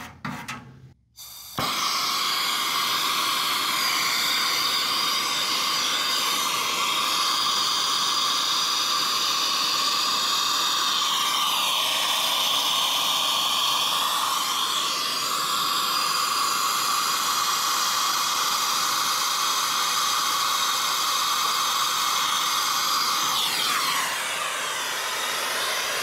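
Air-acetylene torch flame hissing steadily as it heats an aluminum coil tube for soldering with flux and a solid aluminum rod. The hiss starts abruptly about two seconds in and cuts off suddenly at the end as the torch is pulled away.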